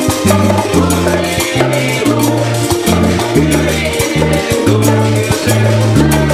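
Salsa-style Latin music played live without vocals: a stepping bass line, guitar, and hand drums and shakers keeping a steady beat.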